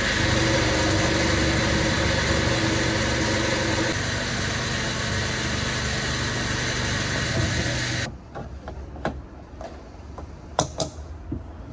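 Car engine and road noise heard inside a car, a steady rumble that cuts off about eight seconds in. A quieter stretch with a few clicks and knocks follows.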